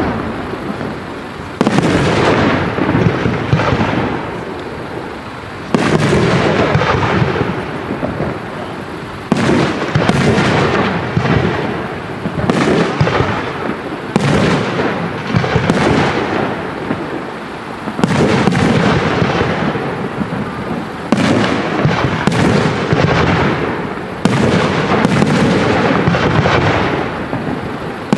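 Aerial firework shells bursting one after another, a loud bang every one to four seconds, each followed by a long rumbling echo that fades before the next.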